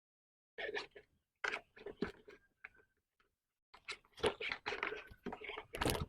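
Plastic pressure washer parts being handled and fitted together: irregular clicks and rattles, a few short clusters at first, then a denser run for the last couple of seconds.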